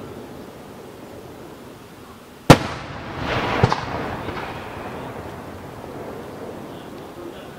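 Aerial fireworks shells: one sharp, loud bang about two and a half seconds in, then a hissing crackle and a second, smaller crack about a second later, followed by a long fading rumble.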